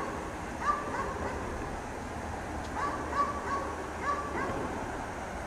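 Dog barking repeatedly in short runs of two or three barks, about seven in all, over a steady background hiss.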